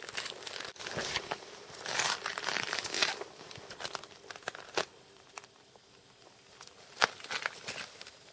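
Irregular rustling and crinkling, densest two to three seconds in, with a couple of sharp clicks later on.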